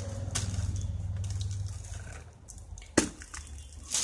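Cardboard firework boxes handled and set down on a hard floor: a light tap, then a sharp knock about three seconds in, over a low steady hum that fades out after about two seconds.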